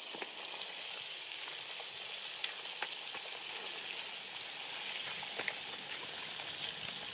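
Fish frying in oil in a flat pan: a steady sizzle with a few sharp pops.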